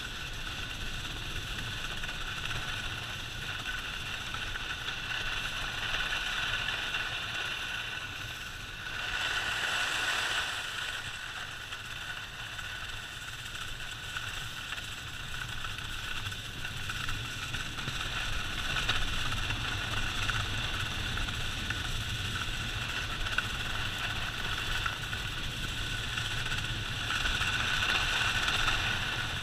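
Skis running fast over groomed, packed snow: a steady hiss and scrape, with wind rumbling on the camera microphone. The scraping swells briefly about ten seconds in and again near the end.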